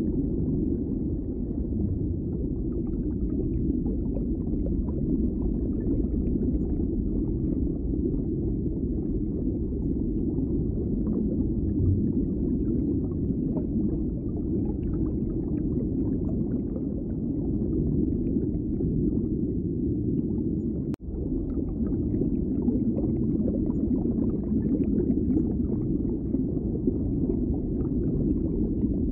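Steady low, muffled rumbling noise with no clear tones. It cuts out for an instant with a click about three-quarters of the way through.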